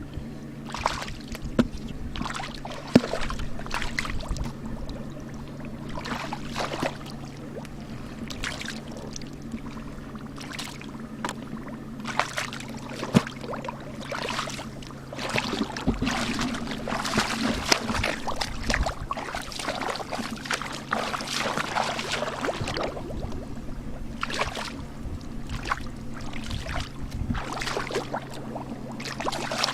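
Water splashing and sloshing in irregular strokes, busiest in the middle, over a steady low hum.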